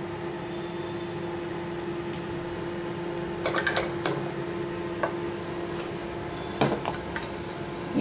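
A steel baking vessel being gripped with a pan gripper and lifted out of a pressure cooker: metal clinks and scrapes, in a short clatter about three and a half seconds in and another near seven seconds, over a steady low hum.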